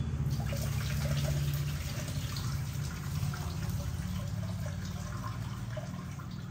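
Kitchen tap running into a metal pressure cooker pot, water splashing and draining off as cut chicken gizzards are rinsed in it, over a steady low hum.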